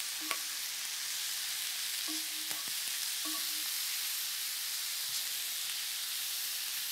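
Oyster mushrooms sautéing in olive oil in a frying pan: a steady sizzle, with a wooden spatula stirring them and a few light knocks against the pan.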